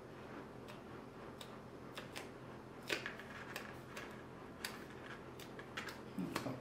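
Small irregular clicks and taps of fingers handling crimped EVA foam petals and a wire stem while pressing glued petals together, the loudest click about three seconds in.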